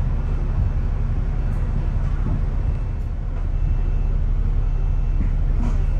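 Double-decker bus engine running in slow traffic, heard inside the upper deck as a steady low rumble, with a brief click near the end.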